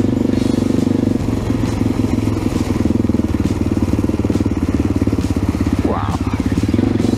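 AJP PR7's 600 cc single-cylinder four-stroke engine running steadily under way off-road, with a fast even pulse and wind and tyre noise over it. A short rising tone about six seconds in.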